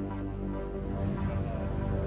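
Background music of sustained chords, shifting to a busier texture about half a second in.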